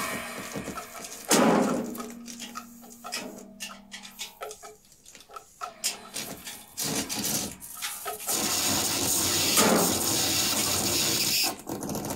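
Experimental improvised music: scattered clicks and scrapes, a sharp struck sound about a second in with a brief low hum after it, and a dense hissing wash of noise from about eight seconds in that cuts off near the end.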